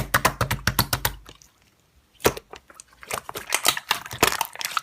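Rapid keyboard typing clicks in two runs, several keystrokes a second, with a pause of about a second and a lone click in the middle.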